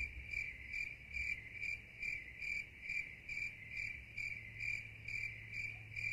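Cricket chirping in a steady, even rhythm of about two and a half chirps a second, each chirp one bright tone, over a faint low hum.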